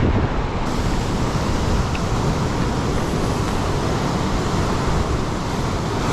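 Strong wind buffeting the microphone over the steady rush of storm surf breaking on a rocky shore: a dense, even roar with a heavy low rumble.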